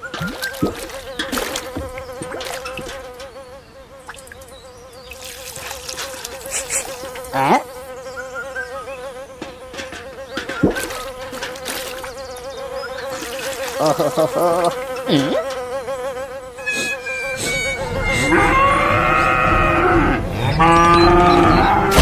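A small electric motor, the kind that drives a DIY mini tractor, buzzing steadily at one pitch, with scattered clicks and knocks. Near the end, louder bending calls come in, like an animal or a voice.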